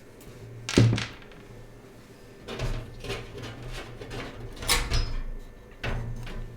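Several knocks and clatters from handling parts in a metal PC case, in four short bursts; the first, about a second in, is the loudest.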